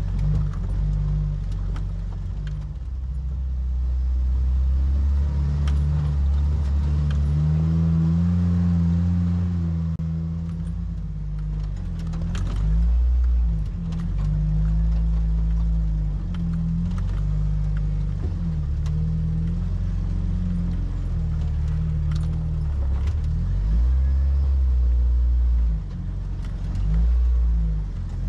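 Off-road 4x4's engine running as it crawls along a rough dirt trail, its note rising and falling over and over with the throttle. Now and then there is a short knock or rattle, as from the body and gear jolting over bumps.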